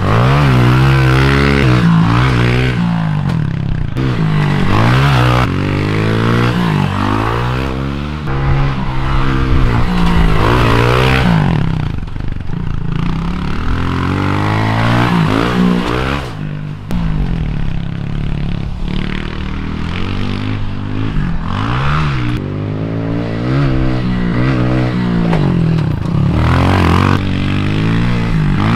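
Honda CRF110 pit bike's small single-cylinder four-stroke engine being ridden hard, its note climbing and falling again and again as the throttle is opened and shut through jumps and corners.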